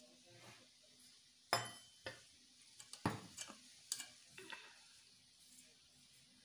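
Hand mixing wheat flour in a stainless steel bowl: a soft rustle of flour, with several light clicks and clinks against the bowl, the loudest about a second and a half in.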